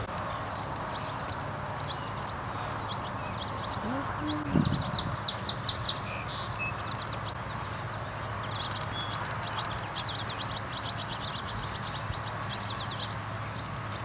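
Barn swallows twittering in rapid runs of short, high chirps: fledglings begging to be fed. A brief low sound cuts in about four and a half seconds in, over a steady background hum.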